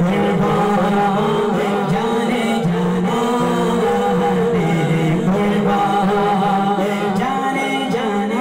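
A man sings a naat, an Islamic devotional poem, unaccompanied by instruments and amplified through a microphone, in long, ornamented notes. A second male voice on another microphone holds a steady backing hum underneath.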